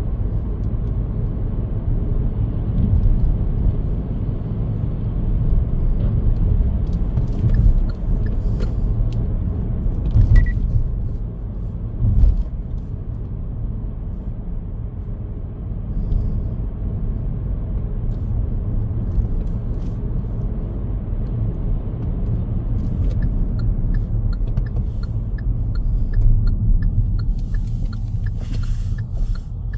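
Car driving along a road: a steady low rumble of tyres and engine, with a few dull knocks. Near the end a faint, regular ticking runs at an even beat of roughly two a second.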